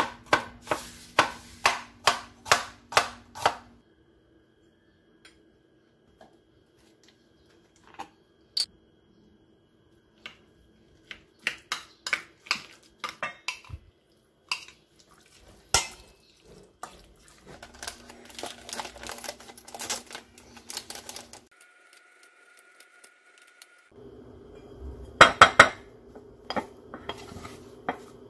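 A kitchen knife chopping on a wooden cutting board, about two or three knocks a second, stopping after a few seconds. Later, a spoon scraping and clinking as sauce is spooned into a steel mixing bowl, then a wooden spatula scraping and knocking in a ceramic dish.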